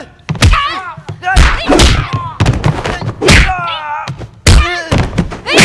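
Martial-arts fight sound effects: about half a dozen heavy punch and kick impacts in quick succession, mixed with the fighters' short shouts and pained cries.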